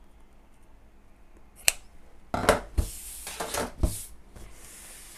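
Scissors snip once through a folded strip of swimsuit fabric, a single sharp click about a second and a half in. Fabric rustling and two soft knocks on the table follow as the cut pieces are handled.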